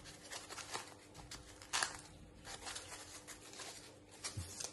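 Faint rustling and scratchy handling noises from a foam packing block being turned in the hands and a small sensor with its wire being pulled out of it, the loudest scrape nearly two seconds in. A faint steady hum runs underneath.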